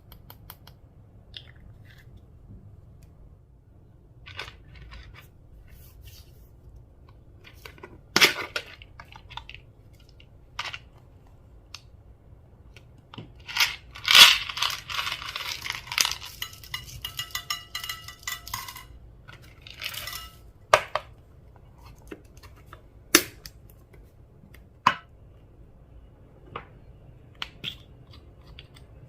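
Slime-making handling sounds: scattered clicks and clinks of small hard containers and tools. Midway there are several seconds of crackly crunching, with the loudest click at its start.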